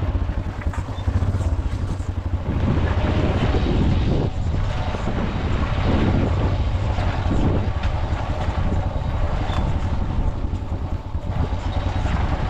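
Motorcycle engine running steadily while riding along a dirt track.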